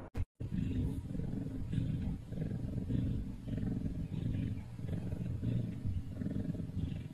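Kitten purring close to the microphone: a low rumble that swells and eases about once a second with its breathing.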